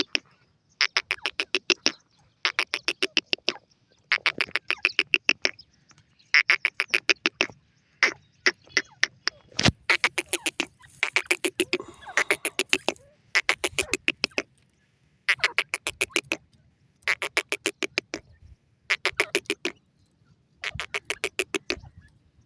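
Francolin (teetar) calling in repeated bouts of rapid, evenly spaced notes, each bout about a second long and coming every second or two, with a few sharp clicks near the middle.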